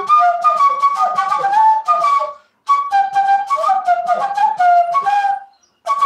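Side-blown transverse flute playing a quick folk-style song melody, in three phrases with short breaks between them a little after two seconds and again near the end.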